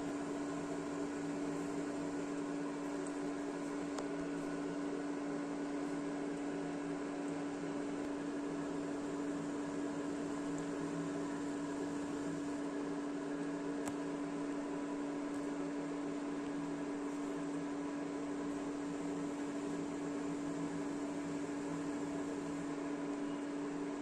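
Induction cooktop running at a boil setting: a steady hum of its cooling fan with a constant low tone that does not change.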